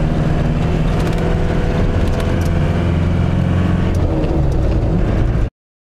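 Car engine and road noise heard from inside the cabin while driving at a steady pace: an even, low hum that cuts off suddenly about five and a half seconds in.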